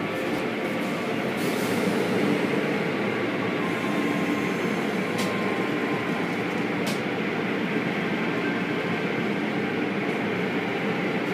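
Automatic tunnel car wash heard from inside the car: water spraying against the windows and cloth brush strips rubbing over the body make a steady churning noise, with a few sharp ticks.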